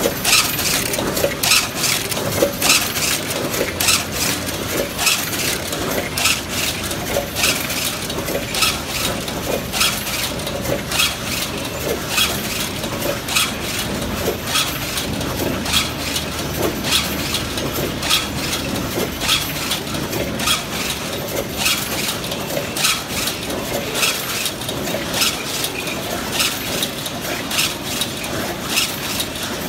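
Stainless steel wire mesh weaving loom running, with a sharp metallic clack about twice a second, one for each pass of the weaving cycle, over a steady machine hum.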